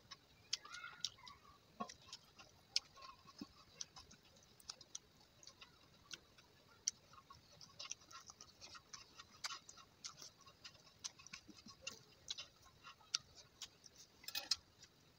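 Close-up eating sounds: faint, irregular wet clicks and smacks of chewing, with fingers working rice on a steel plate, and one louder mouth smack near the end.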